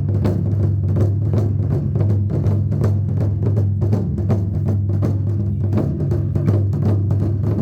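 Rapid, even drumming, about five or six strikes a second, over a steady low hum.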